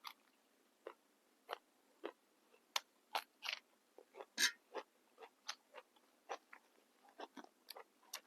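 A person chewing crunchy raw vegetables close to the microphone: quiet, irregular crisp crunches, two or three a second.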